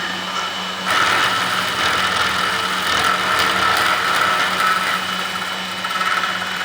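Spindle of a homemade CNC machine driving an end mill through aluminium in a test cut, a steady whine over a low hum. The cutting noise gets louder about a second in and holds.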